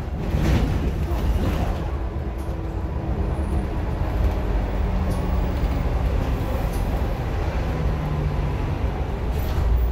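Single-deck bus's engine and drivetrain running steadily, heard from inside the passenger cabin as the bus drives along.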